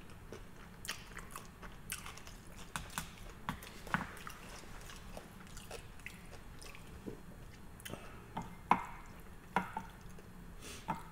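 A person chewing sushi close to the microphone: soft wet mouth smacks and clicks at an irregular pace.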